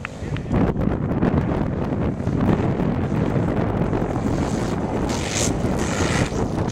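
Racing ATV engines running hard, a dense steady rumble with wind buffeting the microphone.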